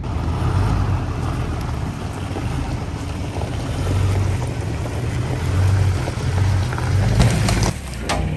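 Engine of heavy log-skidding machinery running steadily under load, with a few sharp knocks near the end.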